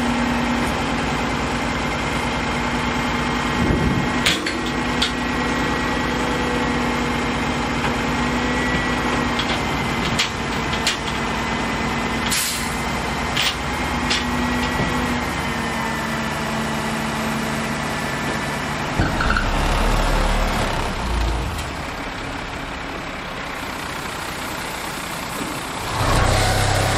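Dump truck's diesel engine running steadily while the hydraulic hoist raises the bed and a load of sand slides out the back. Several sharp clanks sound in the first half, and a low rumble comes about twenty seconds in.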